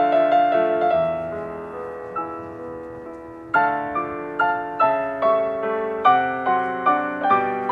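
Solo piano music for ballet class: a gentle passage that fades away about a second and a half in, then picks up again with firmly struck chords about twice a second.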